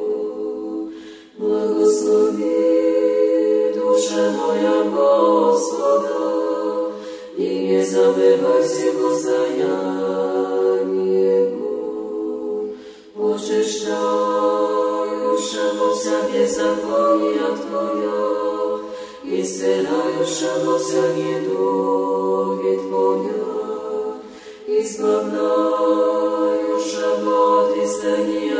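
A cappella choir singing Orthodox chant in Church Slavonic: long held chords in phrases of about six seconds, each followed by a short break for breath.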